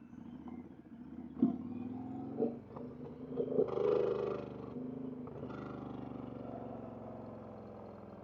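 Motorcycle engine running steadily, swelling louder for a moment about four seconds in, then settling back.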